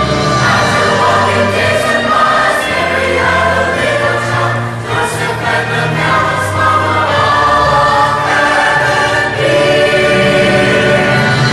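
Choir singing with instrumental accompaniment, in the style of Christian gospel music.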